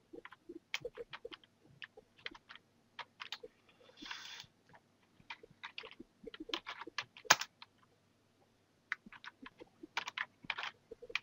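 Typing on a computer keyboard: irregular keystroke clicks in quick runs, with a short hiss about four seconds in and one louder click a little past seven seconds.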